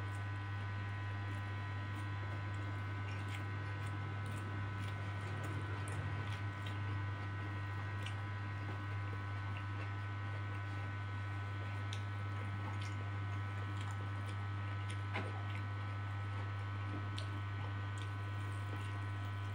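A man chewing a mouthful of fried instant noodles and rice close to a lapel microphone, with wet mouth sounds and small scattered clicks, over a steady low hum.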